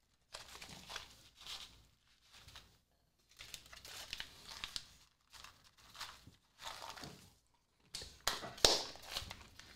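Snack bag of roasted sunflower kernels crinkling and rustling in short irregular bursts as it is handled and the seeds are shaken out, loudest near the end.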